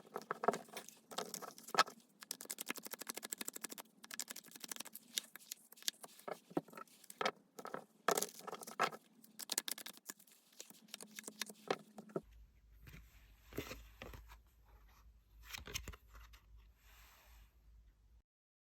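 Tarot cards being shuffled and handled: a dense run of quick papery clicks and scrapes. About twelve seconds in it changes to sparser card sounds over a low hum, which stops shortly before the end.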